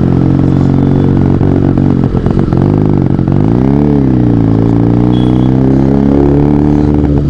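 Benelli TNT 300's parallel-twin engine running through an SC Project aftermarket exhaust, heard from the rider's seat while riding in traffic. It holds steady revs, with a brief dip and swell in engine pitch about three and a half seconds in.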